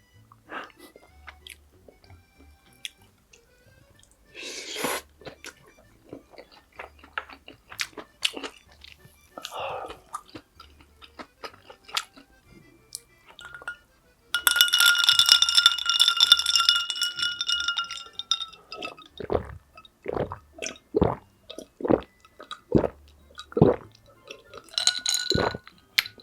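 Close-miked eating: wet chewing and crunching with short clicks of a spoon or chopsticks, over faint background music. Near the middle, a loud sustained tone lasts about three and a half seconds, falling slightly in pitch.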